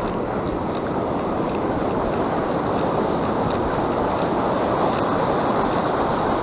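Steady rush of ocean surf washing on a beach, with wind on the microphone, and a few faint ticks over it.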